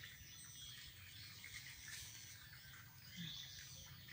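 Quiet outdoor ambience with a few faint, scattered bird chirps.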